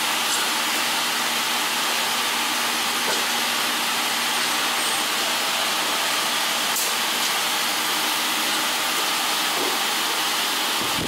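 Industrial donut-forming machine running with a steady, even hiss and a faint low hum.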